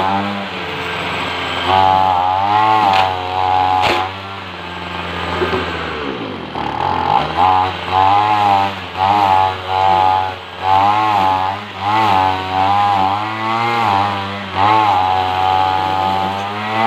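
Petrol string trimmer (whipper snipper) engine running, its throttle squeezed and let off over and over so the pitch rises and falls about once a second, dropping briefly to idle about six seconds in.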